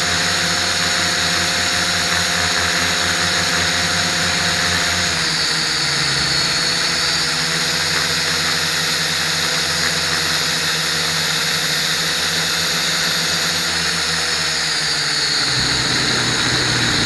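Blade 180 QX micro quadcopter's motors and propellers whirring steadily in flight. The pitch drops about five seconds in and rises again near the end as the throttle changes.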